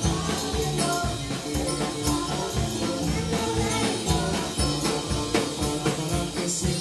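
Live Christian praise band playing an upbeat song: drum kit keeping a steady beat under electric guitar and keyboard, with voices singing.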